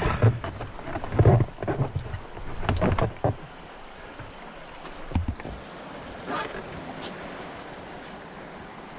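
Plastic whitewater kayak and paddle clunking and scraping against stones as they are lifted off a rocky riverbank, with a few loud knocks in the first three seconds. Then a steady rush of water and wind, with a few faint steps on gravel.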